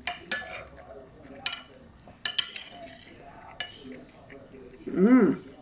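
A spoon clinks against a soup bowl about six times, sharp light knocks spread through the first few seconds. Near the end comes a short, loud voiced "mmm" of enjoyment whose pitch rises and falls.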